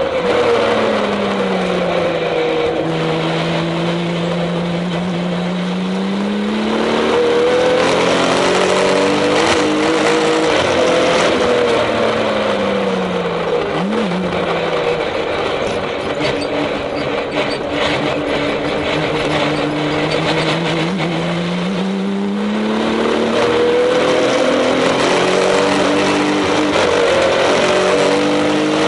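Porsche 996 Turbo's twin-turbo flat-six heard from inside the cabin at track speed, over steady wind and tyre noise. The engine note drops in the first few seconds and holds, climbs again, gives a quick blip about halfway through, then dips and climbs once more near the end.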